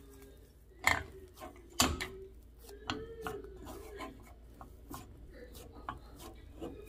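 Hand kneading and pressing dough in a ceramic bowl: faint rubbing and squishing, with two sharp knocks about one and two seconds in and lighter taps after.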